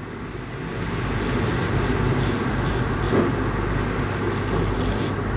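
Karve Christopher Bradley closed-comb safety razor with a Nacet blade scraping through lathered stubble: a steady run of rasping strokes.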